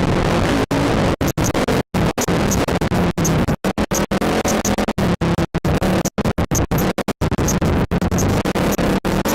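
ATV engine running, its sound cut by dozens of sudden brief dropouts to silence so that it stutters and chops, with faint repeated high-pitched blips: the recording is breaking up.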